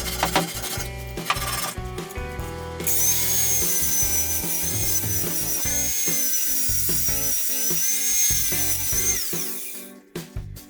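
Power tool running for about six seconds with a steady high whine, starting about three seconds in and winding down near the end, after a few seconds of tapping and scraping. Background music plays throughout.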